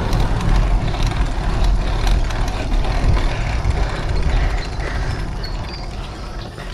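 Wind buffeting an action camera's microphone, with tyre noise from a bicycle rolling on a paved road: a steady low rumble that fades away over the last couple of seconds.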